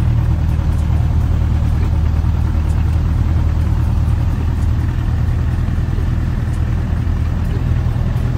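Land Rover Defender's engine running steadily at low revs, a low drone heard from inside the cab.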